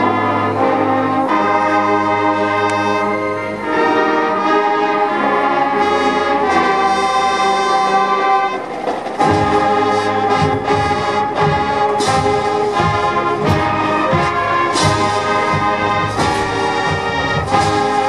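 High school marching band playing, with brass holding slow chords; about halfway through, drums come in with regular beats under the brass.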